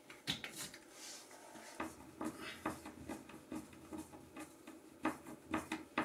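Faint, irregular small clicks, taps and scratches of hands working at a wall, a little louder near the end.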